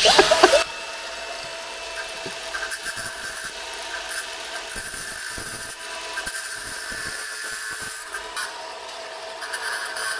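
A handheld power tool running at a steady speed with a high whine, and scraping contact from the work it is cutting or grinding.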